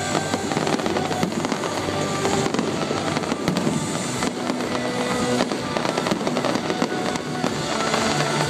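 Fireworks going off in a continuous stream of crackles and pops, with music playing along underneath.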